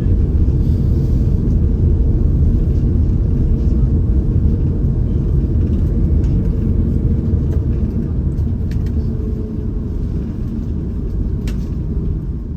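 Steady low rumble inside the cabin of an Airbus A330neo airliner, easing slightly over the last few seconds, with a few faint clicks.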